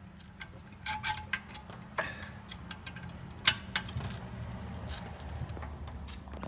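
A screwdriver clicking and scraping against the rear brake caliper as a pad retaining pin is pushed out: scattered sharp metal clicks, the loudest about three and a half seconds in, over a low steady hum.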